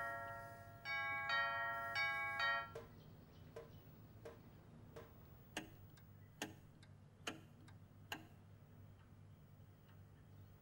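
Pendulum wall clock chiming a short run of ringing bell notes, then ticking steadily. The ticks stop about eight seconds in.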